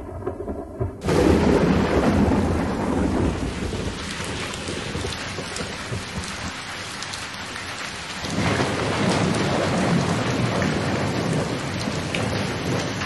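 Heavy rain with thunder: a loud thunder crash breaks in about a second in, then steady downpour with rumbling, and a second roll of thunder swells up about eight seconds in.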